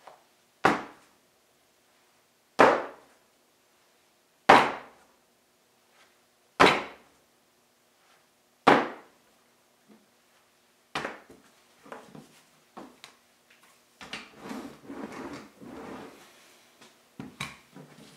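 A rolled clay slab slapped down hard onto a canvas-covered board five times, about every two seconds, each a sharp thwack with a short echo. Then softer rustling and patting as the slab is laid flat on the canvas.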